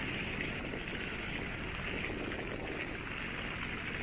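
Steady wash of rain and traffic on wet streets: an even hiss with a low rumble underneath.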